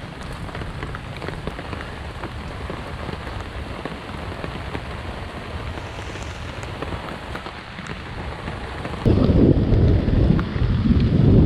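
Steady heavy rain pattering down, with many small drop ticks. About nine seconds in, a sudden loud low rumble sets in, much louder than the rain.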